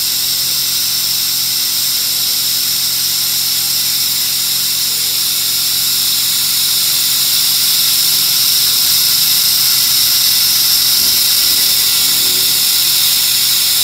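Electric suction pump drawing the spent carbon-cleaning fluid out of the engine through a hose into a catch canister, running with a steady high-pitched whine and hiss that grows slightly louder about halfway through.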